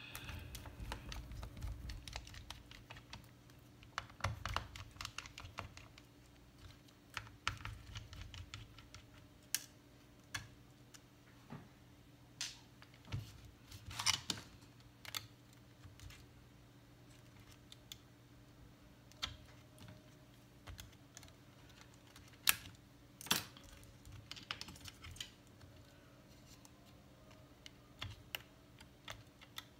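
Irregular small clicks and taps of hand tools and tiny screws against a MacBook Pro's case and internal parts as it is taken apart, with a few sharper clicks now and then.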